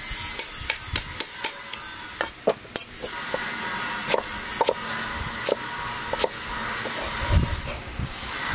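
Cleaver chopping and crushing shallots on a thick round wooden chopping block: a string of irregular knocks, roughly three a second.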